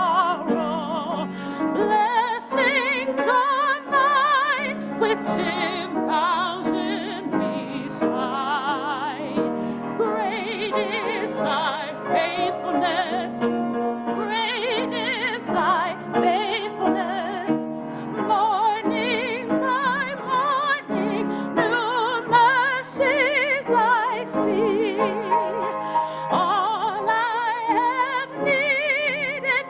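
Hymn sung in a trained, classical style with strong vibrato over sustained instrumental accompaniment, continuing without a break.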